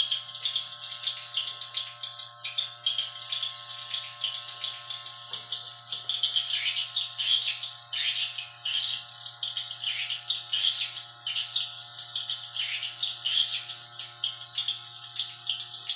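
Swiftlets chirping in a fast, dense, continuous twitter, with a faint low steady hum underneath that cuts off at the very end.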